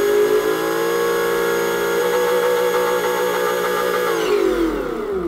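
RC car's electronic engine sound module playing a simulated car engine through its speaker, revved from the transmitter. The pitch climbs, steps up about two seconds in and holds, then winds down toward idle near the end.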